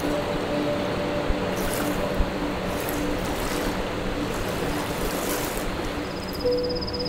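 Steady wash of sea waves on the shore. A high, fast trill starts near the end.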